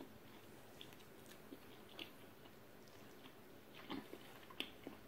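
Faint chewing of a mouthful of spaghetti carbonara, with a few soft clicks; about four seconds in, a small cluster of sharper clicks as a metal fork twirls pasta in the bowl.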